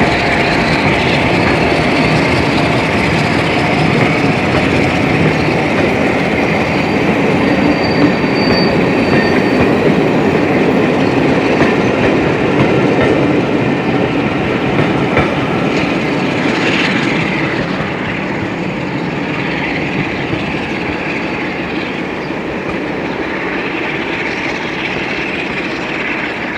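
Passenger train hauled by Class 47 diesel locomotive 47715 rolling past, its wheels clattering over the rail joints with a thin squeal from the wheels at times; the sound eases slightly after about 17 seconds.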